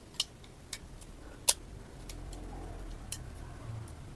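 Plastic parts of a toy mecha figure clicking and knocking as they are moved and repositioned by hand, a few scattered sharp clicks with the loudest about a second and a half in.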